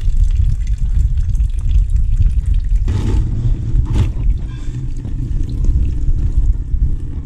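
A stream of green-tinted flush water draining from a motorcycle engine's cooling system into a plastic bucket, splashing steadily as the distilled-water flush is emptied during a coolant change. Two brief knocks come about three and four seconds in.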